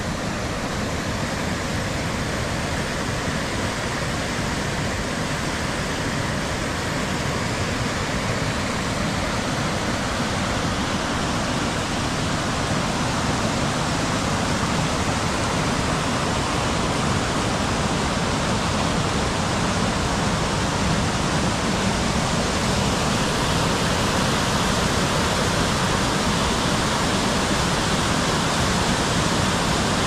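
Steady rushing water, growing slowly louder.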